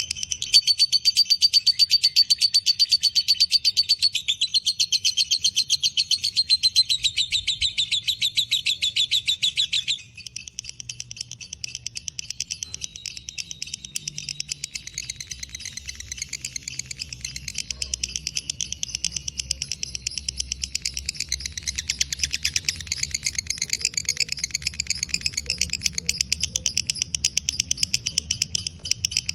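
Lovebird in a long ngekek: an unbroken, rapid chatter of shrill notes, the prized long song of a fighter lovebird. About ten seconds in it suddenly becomes quieter and carries on.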